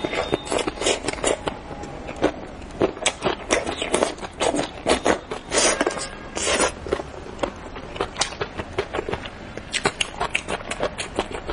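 Close-miked eating of spicy braised fish: wet slurps, sucking and chewing clicks coming in quick succession, loudest and densest in the middle.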